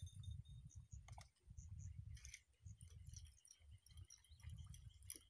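Near silence: a faint, uneven low rumble with scattered light clicks.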